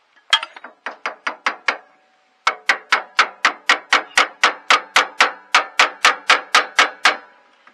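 Ball-peen hammer driving a steel roll pin into a garden tractor's front spindle and axle, metal on metal. There is a quick run of about six strikes, a pause of under a second, then about twenty more at roughly four a second, each with a short metallic ring.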